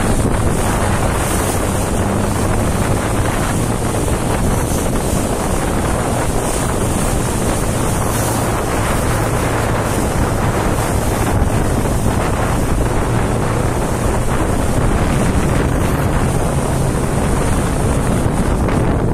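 Strong wind buffeting the microphone over rushing water and spray from a boat under way, with a steady low engine hum underneath.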